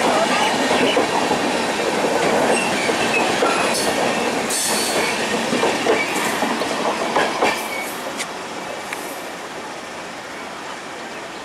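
Passenger train coaches rolling past, wheels clattering over the rail joints with sharp metallic clicks and some squeal. The sound fades in the last few seconds as the train moves away.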